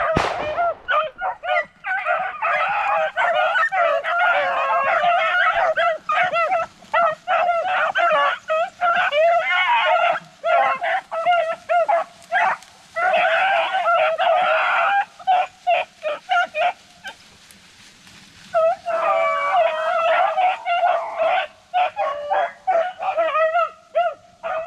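A pack of beagles baying and yipping in many overlapping voices, the sound of hounds running a rabbit on scent. There is a short lull about two-thirds of the way through before the chorus picks back up.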